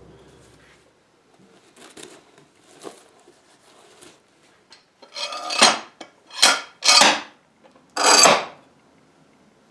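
Four short, loud scraping strokes in the second half, after some light clatter: workshop handling of tools and wood at a workbench.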